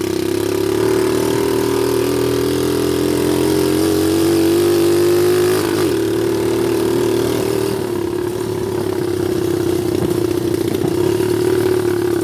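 Small dirt bike's engine running under way as it is ridden. Its note climbs slowly for about five seconds, drops abruptly about halfway through, then holds steady.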